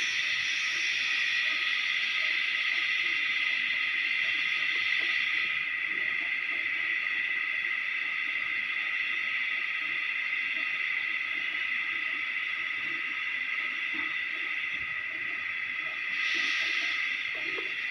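A steady high-pitched hiss, thinner in its upper part from about a third of the way in until near the end.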